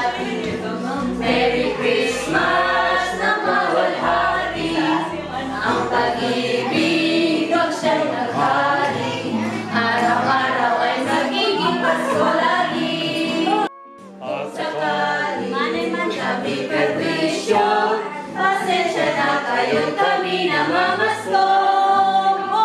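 Music with a group of voices singing over a low bass line that falls away about six seconds in; a brief dropout about fourteen seconds in.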